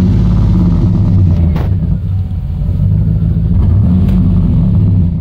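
2013 Chevy Silverado's 5.3 V8 running at idle, heard close to the tailpipe: a steady, low exhaust note that cuts off suddenly just before the end.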